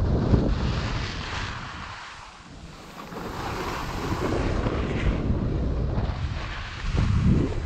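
Wind rushing over the microphone of an action camera carried by a snowboarder riding down a groomed run, mixed with the hiss of snowboard edges scraping over packed snow. The rush drops away about two seconds in and builds again a second later.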